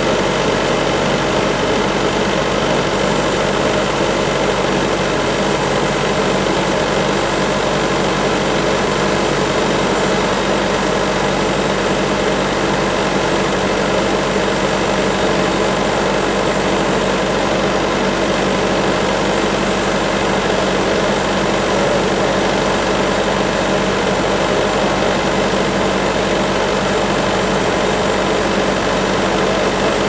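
Large bandsaw sawmill running steadily, its power unit giving an even drone with a stack of steady tones, as the band blade cuts lengthwise through a river-recovered sinker cypress log.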